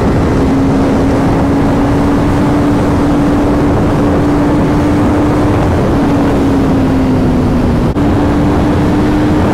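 Kawasaki Z900's inline-four engine running hard at high speed through an Arrow titanium slip-on exhaust, with the catalytic converter still fitted. A steady high engine note over wind rushing on the microphone. The note sags a little, breaks for an instant about eight seconds in, then carries on.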